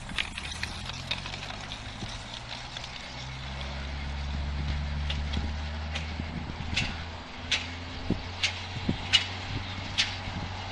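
Greyhound track's mechanical lure running on its rail: a steady low mechanical hum that swells around the middle, then sharp clicks about every three-quarters of a second in the second half.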